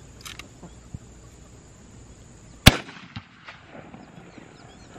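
A single rifle shot, one sharp crack a little over halfway through with a brief tail after it.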